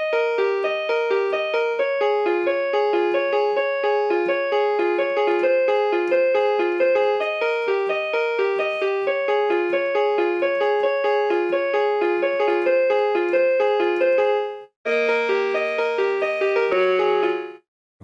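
RockJam RJ361 budget electronic keyboard on its default piano tone, playing a fast, steady, repeating arpeggio figure; the tone sounds thin and cheap. The playing cuts off about 15 seconds in, then resumes with a low bass note under it and stops again just before the end.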